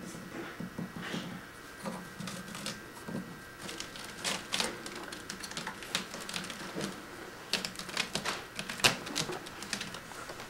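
A Siamese kitten's claws scratching and catching on a sisal-rope scratching post as it climbs it: a quick, irregular run of clicks and scratches, busier from about four seconds in.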